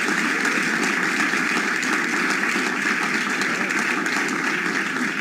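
A large audience applauding steadily: a dense, even clatter of many hands clapping.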